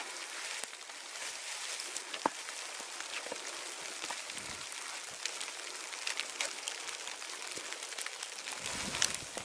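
Graupel (snow pellets) pattering down: a steady hiss scattered with many small sharp ticks. A low rumble comes in near the end.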